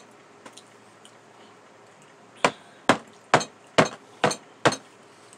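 Metal spoon clinking against a glass bowl six times in an even rhythm, about two strikes a second.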